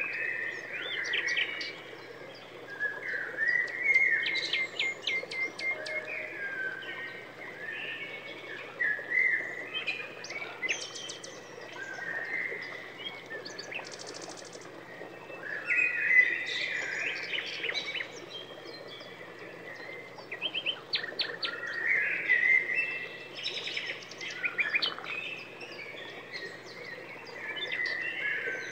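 Songbirds singing: a continuous run of chirps, warbling glides and quick trills with no real break.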